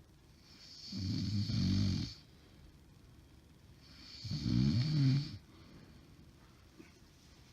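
A woman snoring in her sleep: two long snores with a wavering low pitch, the second about three seconds after the first, with quiet between. The snoring is from a woman her husband believes has developed sleep apnea.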